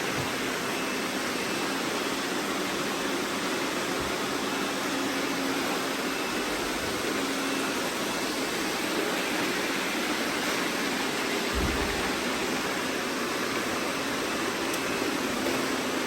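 Many robot vacuums running at once, making a steady, even whirring hum.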